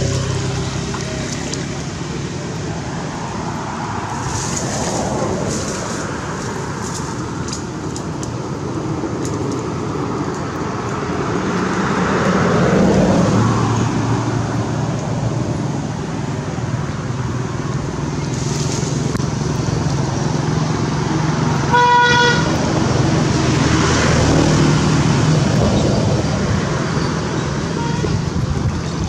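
Road traffic going by, motor vehicles swelling and fading, with one short horn toot about two-thirds of the way through.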